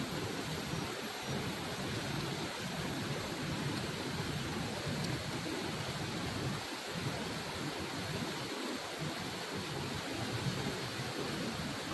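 River water rushing over rocks and small cascades, a steady, even noise.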